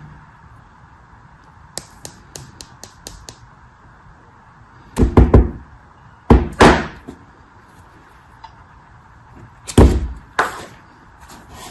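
Packaging being handled during unpacking: a quick run of light clicks, then four loud knocks and thuds, the loudest about halfway through.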